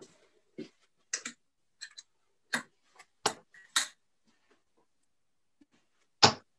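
Steel-tip darts clicking and knocking against a bristle dartboard and against each other as they are pulled out and handled: about ten sharp clicks in the first four seconds, then one louder knock near the end.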